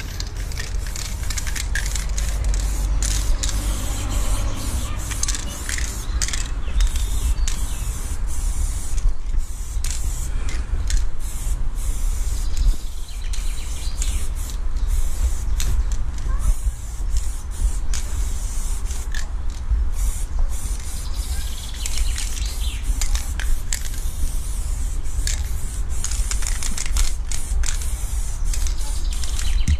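Aerosol spray paint can hissing in repeated short bursts as paint is sprayed onto a wall, over a steady low rumble.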